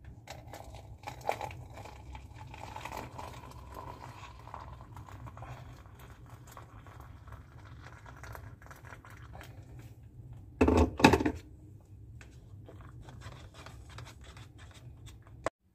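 Hot water poured from a stainless-steel electric kettle into a paper cup, a steady stream. About ten and a half seconds in come two loud bumps, followed by light handling clicks.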